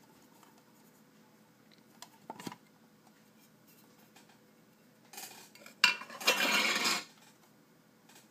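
Metal tin watch box being handled and opened: a few light clinks, then a sharp metallic click about six seconds in, followed by about a second of metal scraping.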